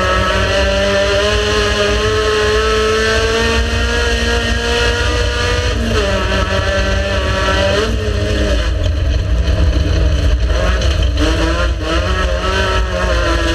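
Race car engine running hard, its pitch holding high and then dropping and climbing again at gear changes about six, eight and eleven seconds in, over a heavy low rumble.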